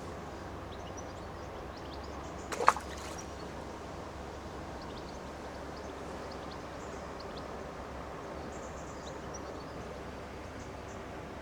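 Steady riverbank ambience: a constant hiss with faint bird chirps, and one sharp knock about two and a half seconds in.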